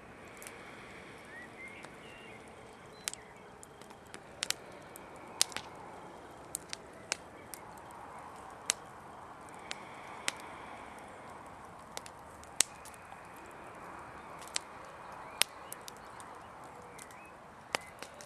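Open wood fire crackling: sharp, irregular pops about once a second over a faint steady background.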